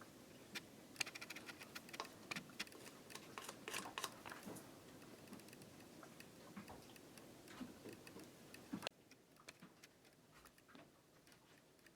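Faint, scattered small clicks and light taps of hand work on small plastic parts. The room noise cuts off suddenly about nine seconds in, leaving near silence with a few tiny ticks.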